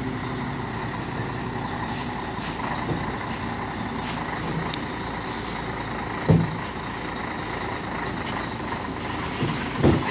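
Diesel truck engine running steadily, with two brief loud thumps, one about six seconds in and one near the end.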